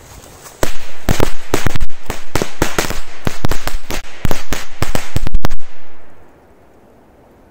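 A firecracker strip (a 'machine-gun belt' of small firecrackers) going off: dozens of sharp cracks in a rapid, irregular volley for about five seconds, starting under a second in and dying away near the end.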